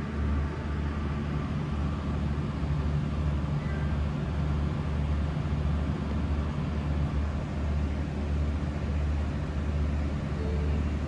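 Sightseeing cruise boat's engine running steadily with a low drone, under an even rush of water and wind.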